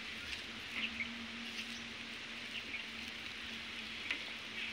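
Baby rabbits nibbling grass close by: a few faint, short crisp crunches scattered over a steady hiss.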